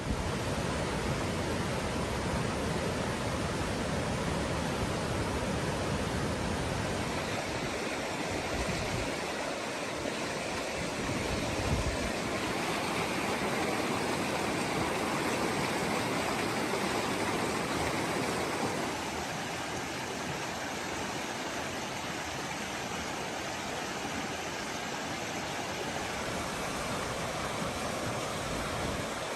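Floodwater rushing down a swollen river: a steady, loud rush of turbulent water that drops a little in level about two-thirds of the way through.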